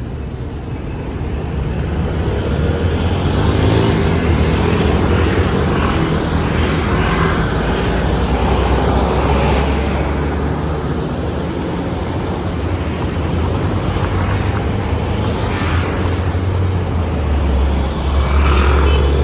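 Taipei MRT train running, a steady loud rumble that swells a few seconds in, with a brief hiss about nine seconds in and the heaviest rumble near the end.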